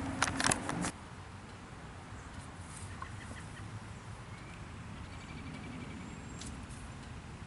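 Quiet outdoor background with a few faint, high bird calls near the middle, after a few handling knocks in the first second.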